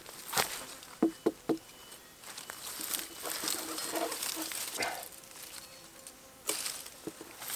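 Insects buzzing in the open air, with scattered sharp clicks and a stretch of rustling in the middle.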